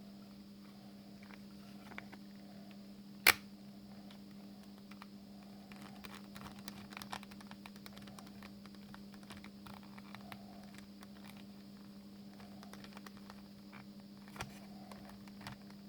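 Small clicks and ticks of a tiny screw being driven into the plastic of a headphone hinge with a precision screwdriver, with one sharp, loud click about three seconds in. A steady low hum runs underneath.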